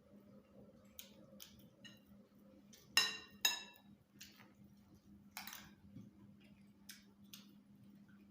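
Two ringing clinks of a utensil against a dish about half a second apart, with lighter clicks and scrapes of eating before and after. A faint steady hum runs underneath.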